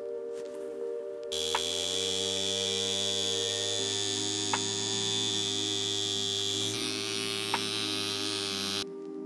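Pneumatic engraving handpiece buzzing steadily with a hiss as it cuts into a watch case, starting about a second in and stopping abruptly shortly before the end, over soft background music.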